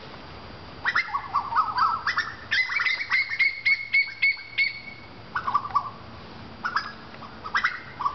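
A bird singing loudly: after about a second, a fast string of short, sharp notes with repeated chirps, then a pause and a few shorter phrases.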